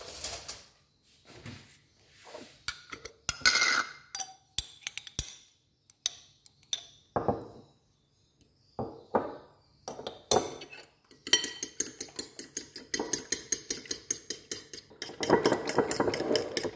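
A metal fork clinking and scraping in a ceramic bowl of eggs and cream cheese: scattered separate knocks at first, then rapid, even strokes as the eggs are beaten, growing louder near the end.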